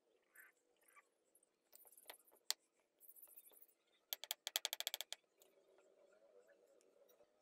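Hammer tapping a brick as it is laid: a couple of single knocks, a short scrape, then a quick run of about a dozen sharp taps about four seconds in.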